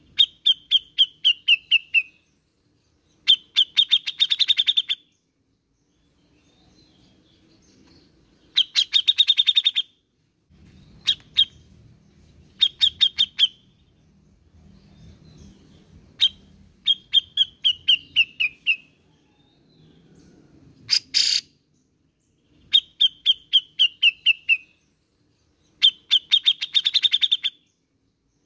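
Grey-cheeked bulbul (cucak jenggot) singing: about eight loud runs of quick repeated notes, most lasting one to two seconds and falling in pitch, with short pauses between, and a few brief single calls.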